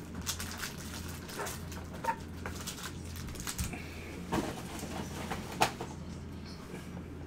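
Scattered rustles, taps and crinkles as a cardboard hobby box is handled and foil trading-card packs are stacked on a table, over a steady low electrical hum.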